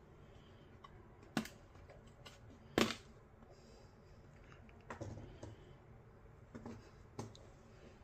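Plastic retaining clips of a Teufel Bluetooth speaker's fabric grille cover snapping loose as the cover is pried off by hand: two sharp clicks about a second and a half apart. Then softer knocks as the cover and speaker are set down on a wooden bench.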